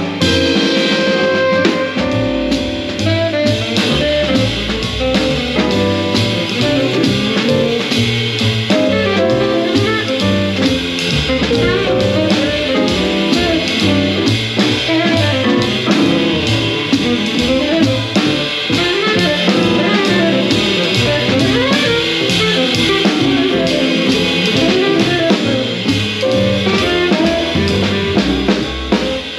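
Small jazz band playing an up-tempo tune with saxophone lead, a stepping bass line and drums, with an acoustic drum kit played live along to the recording.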